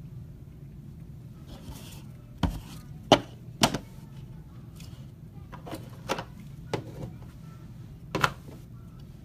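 A series of about seven sharp knocks and clicks, irregularly spaced and loudest about three seconds in, over a steady low hum in a small room.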